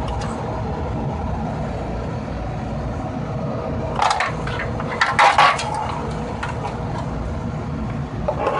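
Steady running hum of a gas furnace and its draft inducer motor. Over it, about four seconds in and again around five seconds, come a few knocks and scrapes as the worn old draft inducer motor is handled and its stiff impeller is turned by hand.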